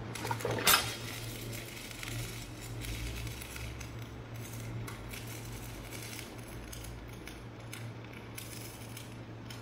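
Stick welding arc burning on aluminium: an irregular crackle with a sharp crack under a second in, over a steady low hum.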